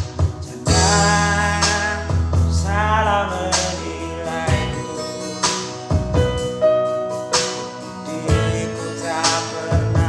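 Instrumental passage of an Indonesian pop love song: a steady beat over bass and keyboard chords, with a wavering melody line a couple of seconds in.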